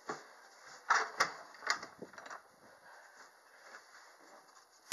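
Door being handled: a few short knocks and clunks in the first two and a half seconds, then only faint room noise.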